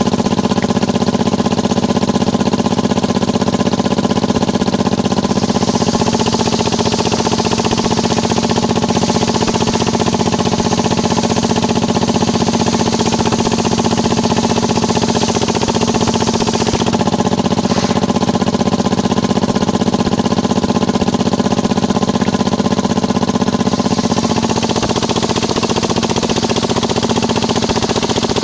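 Engine-driven circular saw bench running steadily, with the hiss of the blade cutting through a length of hardwood from about five seconds in until a few seconds before the end.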